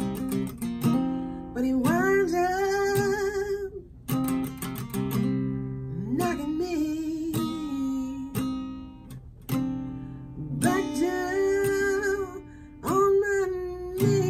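Acoustic guitar strummed in slow chords while a woman sings long, sliding vocal phrases over it, four of them with pauses between.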